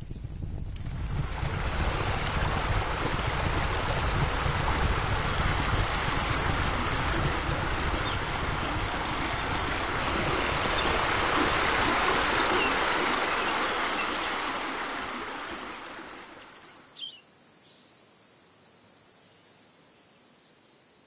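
A steady rushing noise swells and then fades away about sixteen seconds in, followed by faint crickets chirping over a thin, steady high whine.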